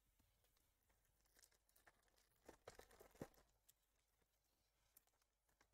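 Near silence with faint crinkling and clicks of baseball trading cards and their pack wrapper being handled, clustered in the middle.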